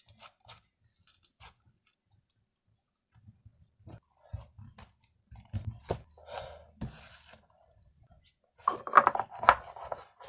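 Slime and its small plastic containers being handled: scattered clicks, crackles and squishes, busiest in the middle and loudest near the end.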